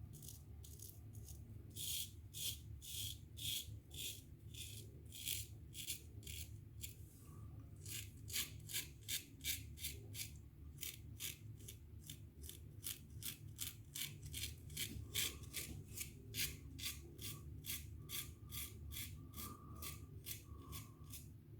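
Gem Featherweight single-edge safety razor scraping through lathered stubble in quick short strokes, about three a second, coming in runs and getting denser and louder about eight seconds in.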